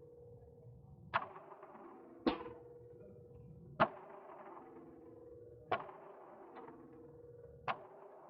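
Five gunshots at irregular intervals, each a sharp crack with a short ringing tail, over a steady hum.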